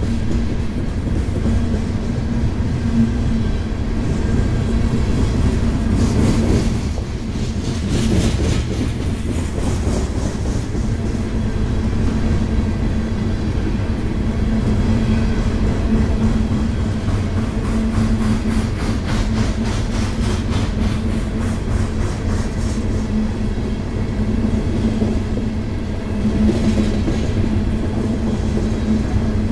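Loaded coal hopper cars of a freight train rolling steadily past, steel wheels rumbling on the rails.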